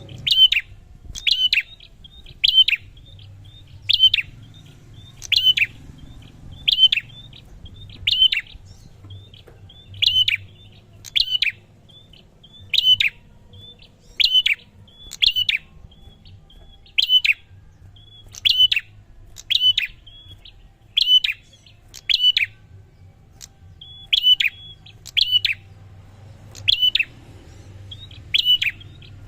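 Prinia (prenjak) calling: a sharp, loud chirp repeated steadily about once every second and a half, with fainter short notes in between.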